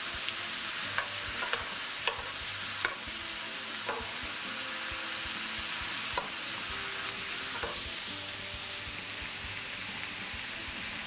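Diced bell peppers, red onion and fresh tomatoes sizzling in a metal skillet while a metal spoon stirs them, the spoon clicking and scraping against the pan about once a second in the first few seconds and less often after.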